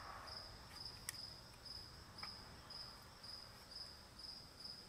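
Faint, steady chirping of a cricket, about two chirps a second, with a couple of light clicks.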